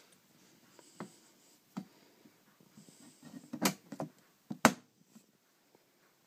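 Handling noise: scattered knocks and rubbing, with two sharp knocks about three and a half and four and a half seconds in.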